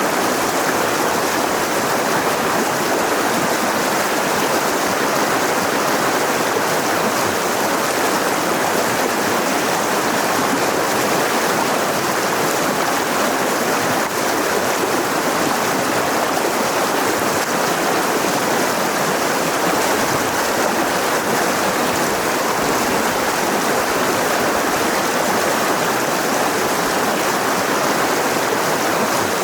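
Mountain river rushing over rocks: a steady, even water noise with no breaks.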